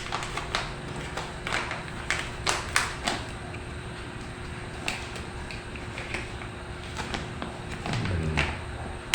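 Scattered light taps, clicks and rustles of hands handling the small plastic-wrapped packaging of a Type-C connector, with a faint steady hum underneath.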